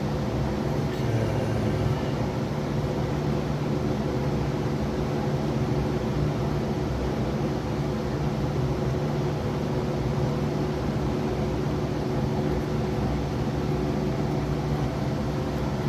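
Steady machine hum with several low, unchanging tones, like a fan or motor running, holding level throughout.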